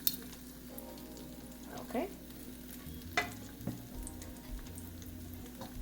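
Egg-soaked slices of French toast frying in vegetable oil in a pan, with a steady sizzle. A couple of sharp clicks sound over it, one at the start and one a little past the middle.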